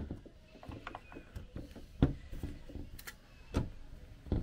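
Scattered light clicks and knocks of a snowmobile's twin carburetor being handled and turned over on a workbench, the sharpest about two seconds in and a few more towards the end.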